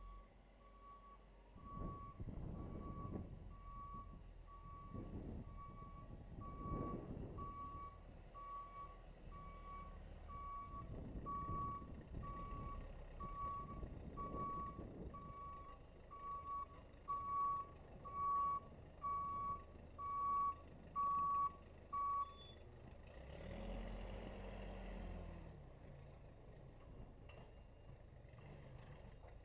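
Case 580C backhoe reversing while pushing snow: its backup alarm beeps about once a second, growing louder over the engine, which swells several times as it works. The beeping stops about 22 seconds in, followed by a brief louder burst of machine noise.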